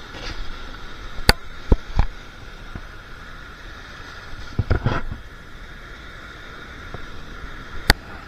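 Steady wash of surf and wind, broken by a few sharp knocks, the loudest about a second in and near the end.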